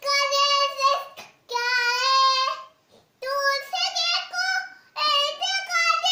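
A young girl singing alone without accompaniment: four high, held phrases, each a second or so long, with short breaths between them.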